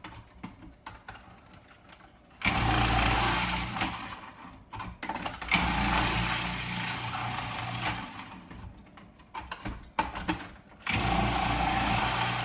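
Food processor motor running as it shreds chunks of cauliflower through its grating disc. It runs in three spells: starting about two and a half seconds in, again about five and a half seconds in, and once more near the end. Small clicks and knocks fill the pauses between.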